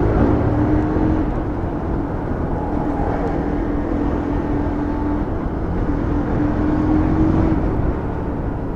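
Motorcycle being ridden, its engine running steadily under a dense, low road and traffic rumble. A faint steady tone comes and goes. The engine is running without coolant.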